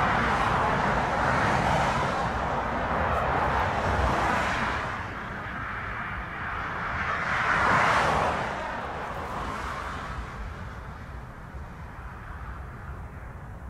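Jet airliner engines running on the airfield: a steady roar that swells and eases twice, then dies away over the last few seconds.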